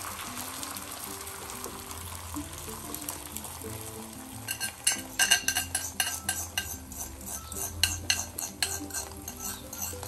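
Beaten egg sizzling in a hot nonstick frying pan as an omelette cooks. About halfway through, a metal utensil starts clinking against the cookware in quick, irregular taps.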